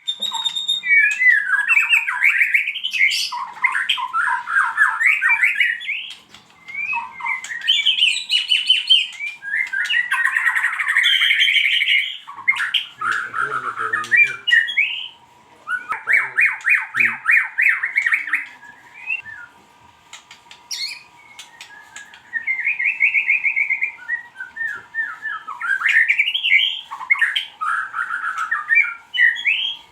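White-rumped shama singing a long, varied song of rapid trills, whistled glides and harsh chattering phrases, broken by brief pauses.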